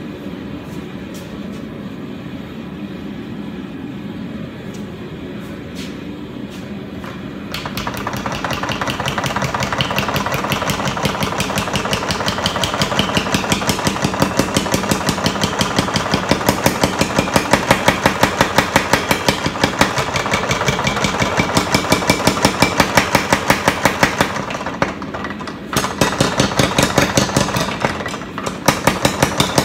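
25-pound Little Giant mechanical power hammer. For the first several seconds only its flywheel spins with a steady hum. About seven seconds in, the ram begins hammering a hot steel bar in a rapid, even run of blows, several a second. The blows stop briefly near 25 seconds and then resume.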